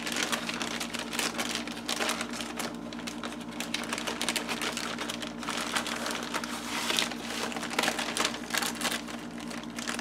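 Paper and card of a handmade folio and booklet being handled: irregular rustling with small taps and clicks, over a steady low hum.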